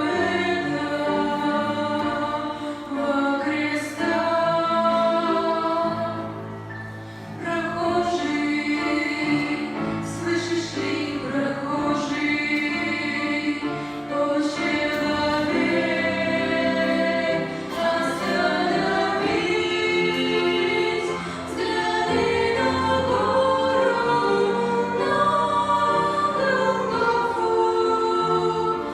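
Church choir singing a hymn in several voice parts, holding sustained chords, with a brief pause between phrases about seven seconds in.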